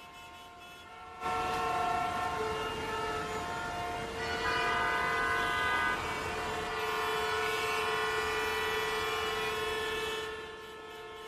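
Road traffic sound effect: several vehicle horns honking at once, long held notes at different pitches overlapping over a steady traffic noise. It starts about a second in and fades near the end.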